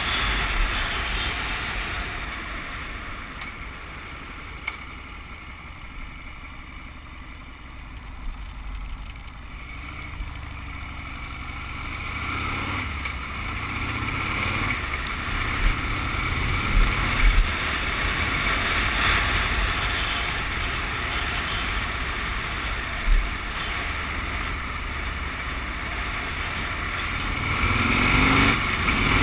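Harley-Davidson Sportster V-twin engine running as the bike rides along, over wind noise. The engine falls quieter for several seconds, then builds again and rises in pitch near the end as it accelerates.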